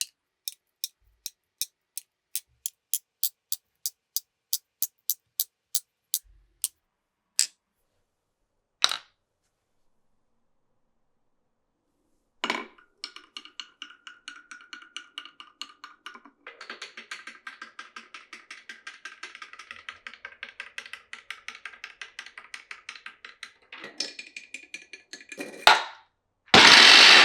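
Glass marbles running through a wooden marble run. First comes a string of sharp clacks, about three a second, that quicken, then slow and stop. After a short pause there is a knock, then a long stretch of fast, dense rattling ticks with a ringing edge as marbles roll along the track. A loud burst of noise starts near the end.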